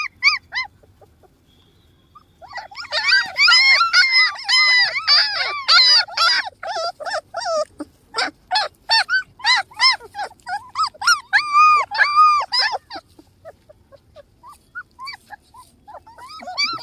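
Several puppies whining and yelping in short, high-pitched, overlapping cries. The cries start after a brief quiet, are densest through the middle, die down to a few near the end, then pick up again.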